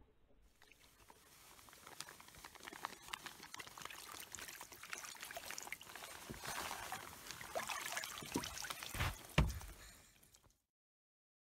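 Water and slush sloshing and trickling in a hole in lake ice as a wooden pole is worked down through it, a dense wash of small clicks that grows louder, with two sharp knocks near the end.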